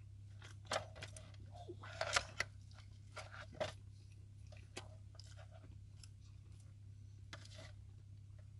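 Faint crinkles and clicks of an aluminium foil tray being handled as pizza is picked from it and eaten, with some chewing. The sounds cluster in the first four seconds and come more sparsely after, over a steady low hum.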